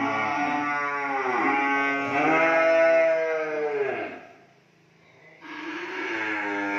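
Young cattle in a barn mooing: long calls, one running into the next, each rising and then falling in pitch. There is a short lull a little past the middle, then the mooing starts again suddenly.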